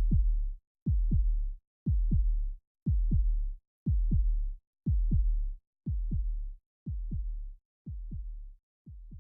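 Heartbeat sound effect: paired deep thumps, about one pair a second, fading away over the last few beats.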